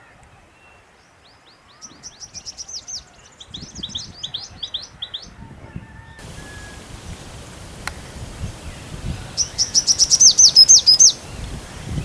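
Small bird singing: fast runs of high, down-slurred chirps, one starting about two seconds in and lasting some three seconds, and a louder run near the end.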